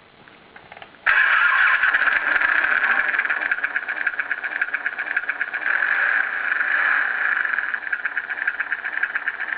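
Sound-effect recording of a Harley-Davidson V-Rod's V-twin engine running, played back from the sound module built into a model motorcycle. It starts abruptly about a second in and runs steadily with a fast pulsing beat, thin, with little low end.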